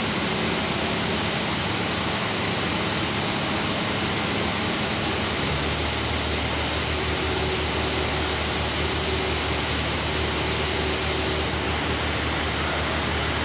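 Mobile crane's diesel engine running under a steady hiss of site noise during a lift; the engine note drops to a lower hum about five and a half seconds in.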